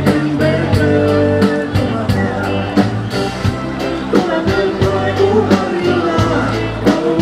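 Band music with a steady drum beat, bass and sustained melody notes.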